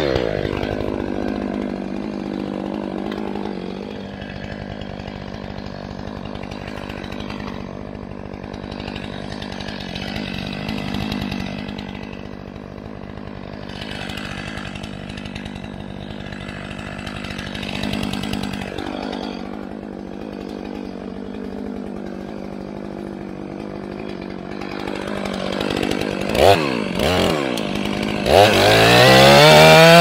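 Stihl 500i fuel-injected two-stroke chainsaw idling steadily after a cut. Near the end it is revved sharply twice, then opened up to full throttle as it starts cutting into a white oak log.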